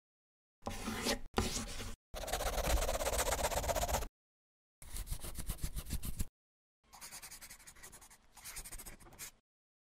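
Scribbling sound effect of a pen on paper, in several separate bursts of quick scratchy strokes with dead silence between them.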